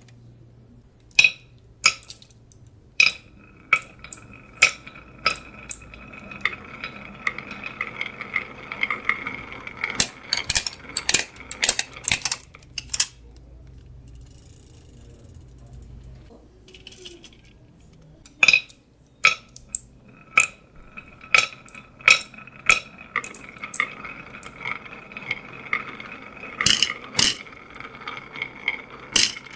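Marbles rolling and clattering down a HABA wooden marble run: sharp clicks and knocks as they drop and strike the track, with a steady ringing tone while they roll. There are two busy runs, with a lull in the middle.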